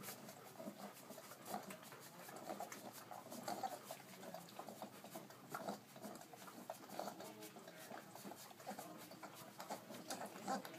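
Four-week-old Irish setter puppies nursing from their mother: a busy run of small whimpers and suckling noises from many pups at once.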